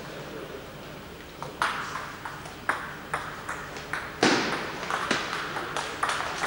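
Table tennis rally: a 38 mm celluloid ball clicking back and forth off bats and tabletop, starting about one and a half seconds in, a click every third to half second. There is one louder thump a little past halfway.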